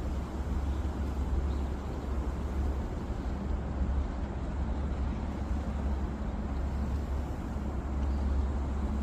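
Strong wind buffeting the microphone: a steady low rumble with a rushing hiss over it.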